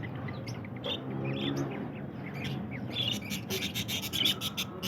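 Many caged small birds chirping, the quick high calls growing denser in the second half.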